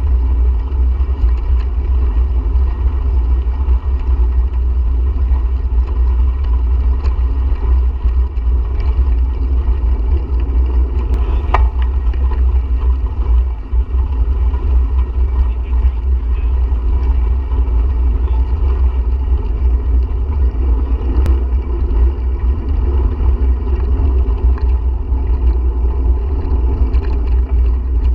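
Steady low rumble of wind buffeting the microphone of a camera moving along with a bike rider. Two sharp clicks stand out, one about halfway through and one a few seconds before the end.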